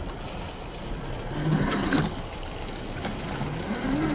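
1/10-scale RC rock crawler's brushed electric motor and drivetrain whining, the pitch rising and falling as the throttle is worked, over a steady hissing background.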